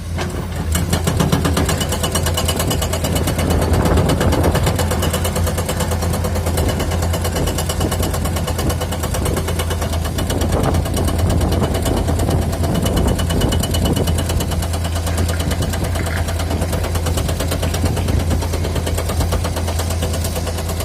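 Excavator-mounted hydraulic rock breaker hammering rock in a rapid, steady rhythm of impacts, over the excavator's diesel engine running.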